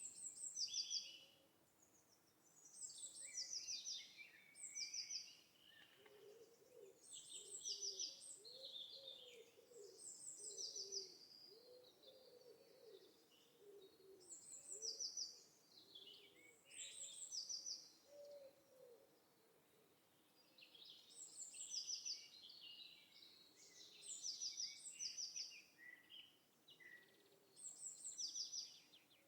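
Birds singing: high, chirping phrases repeat about every two seconds, and a softer, lower call warbles through the middle.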